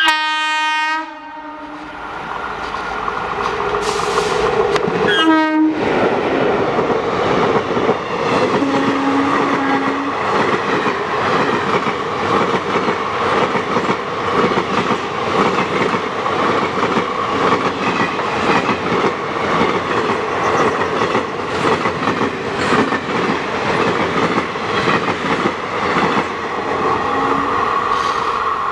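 WAP4 electric locomotive's horn sounding for about a second, then a second short blast about five seconds in whose pitch drops as the engine passes. The passenger coaches then run past, wheels clicking rhythmically over the rail joints.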